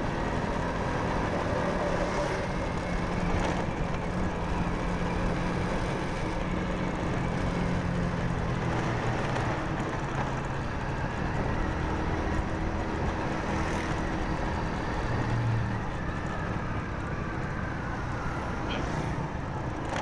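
Honda motorcycle engine running steadily under the rider, with wind and road noise and the sound of surrounding street traffic.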